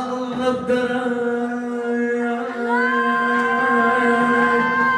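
Arabic-style singing: a long note held steady, with a second, higher note sliding up and holding from about halfway through.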